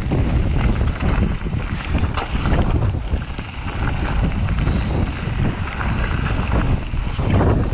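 Wind buffeting the microphone of a mountain bike's camera while riding downhill, over the crunch and rattle of knobbly tyres rolling on a loose gravel trail.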